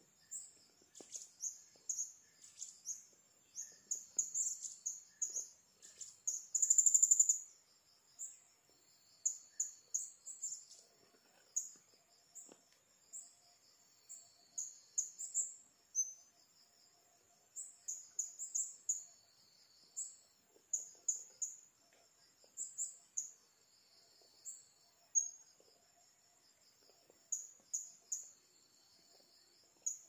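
High, sharp chirps of blue-crowned hanging parrots (serindit): short notes every second or so, with a longer, louder burst about seven seconds in, over a steady high insect drone.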